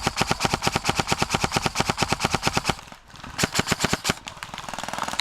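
Airsoft gun firing on full auto, a rapid string of sharp shots at about fifteen a second: one long burst, a short pause, a second shorter burst about three seconds in, then fainter rapid fire near the end.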